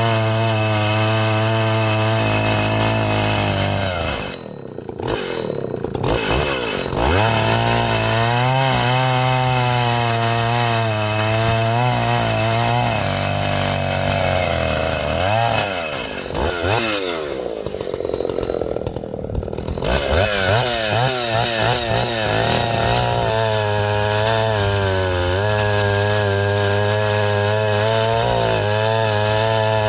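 Vintage Husqvarna L65 two-stroke chainsaw running at high revs, its pitch wavering as the chain works through ash logs. Twice, about four seconds in and again around sixteen seconds, the throttle drops back and the engine falls away and revs back up.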